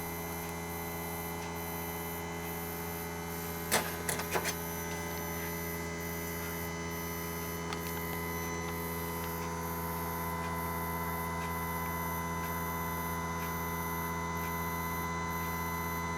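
HAFCO EDBD-13 drill sharpener's motor running with a steady hum while a drill bit is ground against its diamond wheel. A few sharp clicks come about four seconds in.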